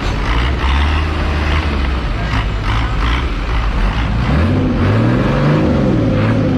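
Boat engine running with a low steady drone, then revving up about four seconds in and easing off again, over a steady rushing noise.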